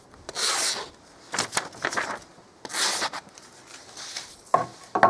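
Handling noise from the camera being gripped and adjusted close to its microphone: three scratchy rubbing bursts, then two sharp clicks near the end.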